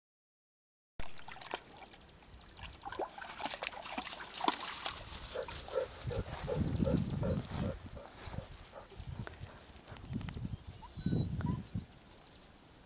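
Black Labrador retriever and her puppy panting and snuffling close to the microphone while moving through grass, with rustling and soft knocks. Midway comes a run of quick, even breaths, about four a second. The sound starts abruptly about a second in.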